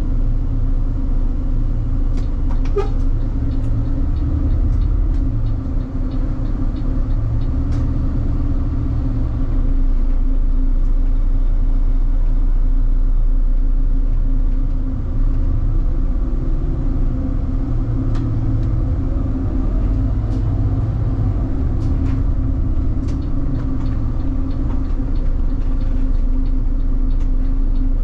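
City bus under way, heard from inside the cabin: a steady low engine and road rumble with scattered clicks and rattles.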